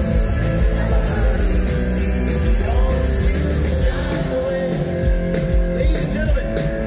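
Live rock band playing at full volume with a singer, heavy bass underneath.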